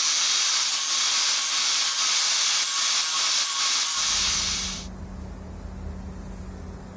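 Angle grinder cutting steel: a loud, steady high hiss of the disc in the metal. It stops abruptly about four to five seconds in, giving way to a much quieter low hum.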